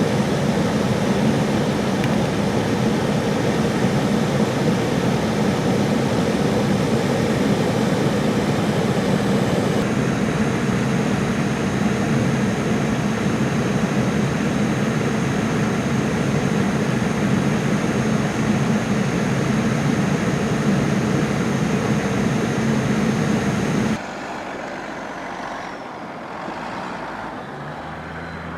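Steady road and engine noise of a vehicle driving, heard from inside, with a thin high steady whine joining about ten seconds in. Near the end the sound drops suddenly to a quieter, fainter engine noise.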